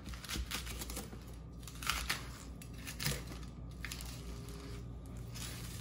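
Large kitchen knife sawing lengthwise through a whole pineapple, the tough rind and fibrous flesh crunching and crackling with each irregular stroke of the blade.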